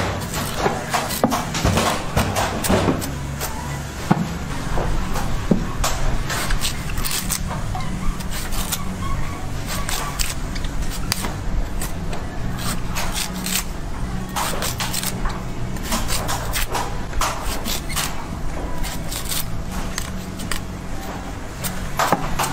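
A long knife chopping and shaving the fibrous husk off a green coconut held against a wooden block, in many quick irregular strokes. A steady low rumble of street traffic runs underneath.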